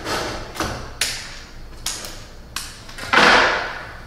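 Wood chisel cutting waste out of a saw-kerfed joint: a few sharp knocks, then a louder, longer crunch about three seconds in as a chunk of wood splits away.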